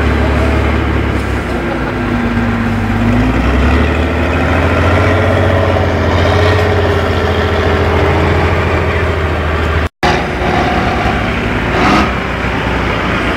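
Tatra 813 trial truck's diesel engine working under load as it crawls through mud, its revs rising and falling. The sound drops out for a split second about ten seconds in.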